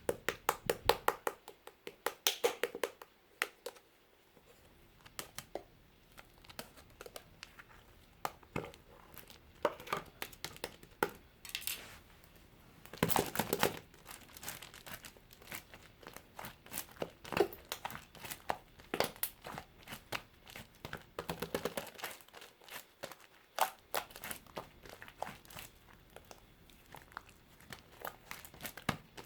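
Mint-chocolate clay slime being squished, pressed and stretched by hand, giving irregular quick clicks, pops and crackles, with a denser run of crackling about 13 seconds in.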